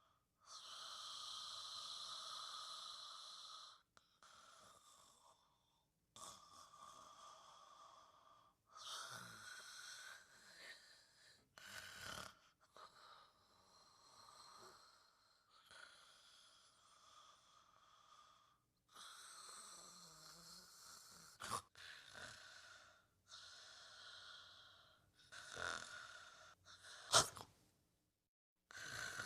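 Faint, gentle snoring of a sleeper: soft raspy breaths coming one after another every few seconds. A short sharp sound near the end is the loudest moment.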